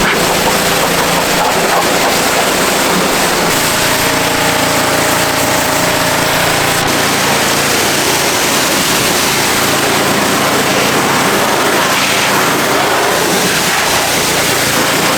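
Pressure washer spraying water: a steady, loud hiss of the jet with the machine running beneath it.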